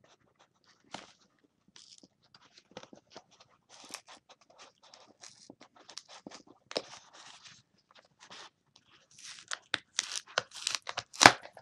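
A mailing package being cut and torn open with a knife: scattered scratches and tearing of cardboard and tape, getting louder and busier near the end.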